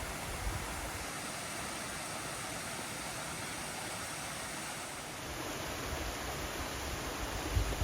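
A steady rushing noise, like running water or wind, with a few low bumps near the start and near the end.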